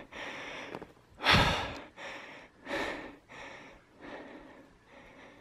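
A man breathing hard into the microphone, about one audible breath every second, the loudest about a second and a half in.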